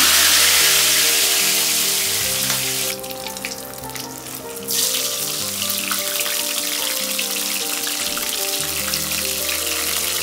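Stuffed whole brinjals deep-frying in hot oil in a metal kadai: a loud, steady sizzle, loudest at the start as the brinjal goes into the oil. About three seconds in the sizzle drops away for under two seconds, then resumes evenly, over soft background music with held notes.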